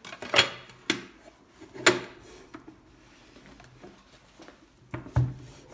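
Sharp clicks and knocks of a portable mini spot welder's case and parts being handled and fitted together: a few single knocks in the first two seconds, then two more close together near the end.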